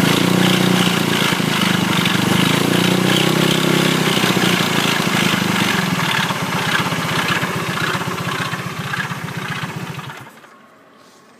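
Engine running with a fast, even firing rhythm that grows weaker over its last few seconds and then stops about ten seconds in: the engine dying on its own, the sudden stalling that is the owner's problem.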